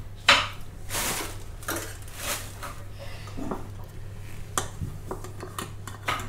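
Kitchen utensils and dishes being handled: scattered clinks, knocks and short scrapes, over a faint steady low hum.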